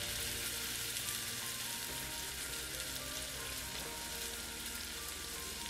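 Oil and water sizzling steadily in a hot non-stick pan of minced garlic, ginger and chili flakes, as water poured into the hot oil bubbles. Soft background music plays underneath.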